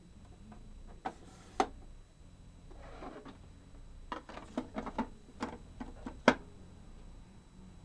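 8-track tape cartridge being handled and pushed into the slot of a Panasonic RE-8080 8-track player: a string of plastic clicks and knocks with a brief rustle, ending in one sharp clack a little over six seconds in as the cartridge goes home.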